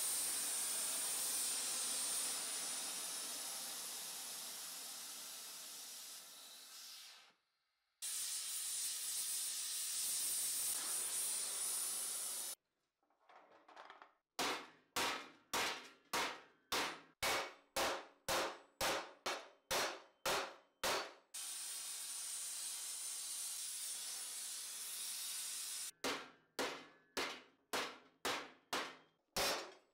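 A gas torch hissing steadily, cut off abruptly, then runs of hammer blows on steel sheet, about three a second, as a helmet plate is shaped over a stake, with torch hiss again between the runs.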